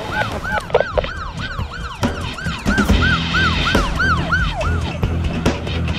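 Police siren in a fast yelp, about four rising-and-falling wails a second, stopping about five seconds in.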